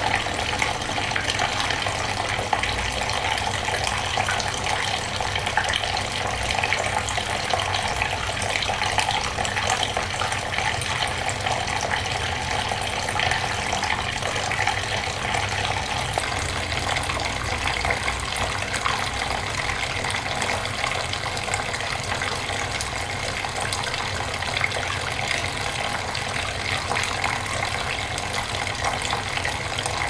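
Tabletop waterfall fountain running: thin streams of water falling from its top ledge into a shallow basin, a steady splashing trickle.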